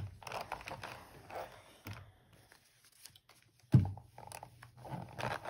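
Pressing a paper-pieced quilt block with a small Oliso mini iron on a wool pressing mat: paper and fabric rustling as the iron is pushed and the block is handled, with one sharp knock a little under four seconds in.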